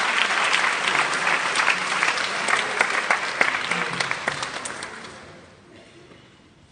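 Audience applauding, a dense patter of hand claps that thins out and dies away about five seconds in.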